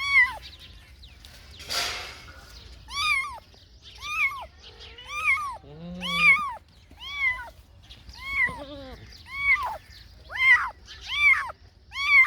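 A kitten meowing over and over, short high-pitched rising-and-falling meows about once a second. A short noisy burst comes about two seconds in, and two lower-pitched calls come near the middle.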